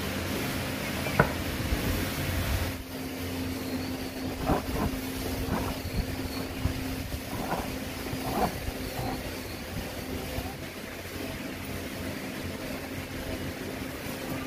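Several light clicks and knocks as pine slats, steel washers and nuts are slid onto threaded steel rods, over a steady low hum. The hum changes abruptly about three seconds in, and the clicks fall between about four and nine seconds in.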